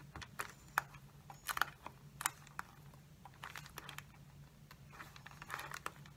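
Thin soda-bottle plastic crinkling and clicking as it is held and pressed by hand: scattered small ticks and crackles over a faint steady low hum.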